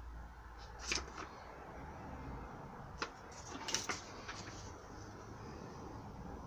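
A few sharp knocks and clicks from handling tools and a shoe during shoe repair: one about a second in, then three more close together around three to four seconds in, over a low hum.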